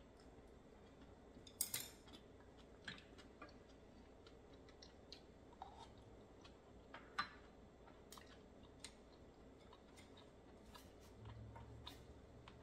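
Quiet chewing and wet mouth clicks of a person eating raw oysters, with a few sharper clicks, the loudest about two seconds in.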